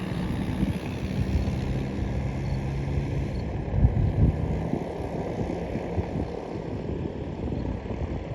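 Cessna 150F's propeller engine humming at low power, its pitch dropping over the first few seconds before it fades under wind rumble on the microphone. A thump about four seconds in.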